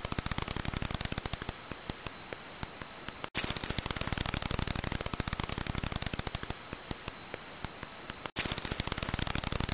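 Long-eared bat echolocation calls made audible: fast trains of dry clicks that thin out into separate ticks, breaking off briefly twice and starting again, over a faint steady high tone.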